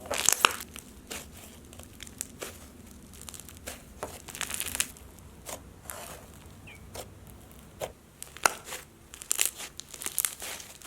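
Slime with foam beads, sprinkles and cane slices mixed in being squished and stretched by hand, giving off irregular crinkly crackles and pops.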